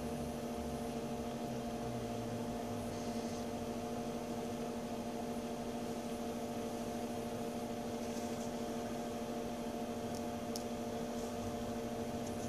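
Steady electrical hum made of several held tones, with a few faint clicks in the second half.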